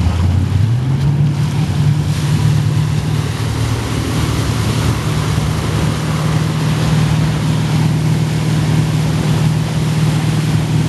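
Wakesurf boat engine speeding up, its drone rising in pitch about half a second in and then holding steady, over the rush of the churning wake and wind on the microphone.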